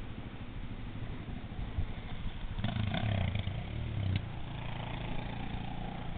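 Distant off-road motorcycle engine running, louder for a moment from about two and a half seconds in, then easing back to a steady drone.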